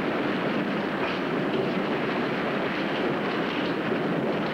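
Steady rushing noise of heavy rain from a storm, even and unbroken.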